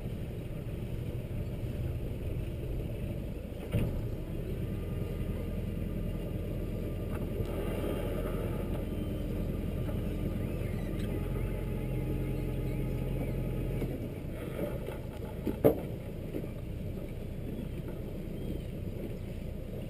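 A sailboat's inboard engine running at low revs, a steady low hum; its deepest note drops away about two-thirds of the way through. A knock sounds early on and a sharper one later.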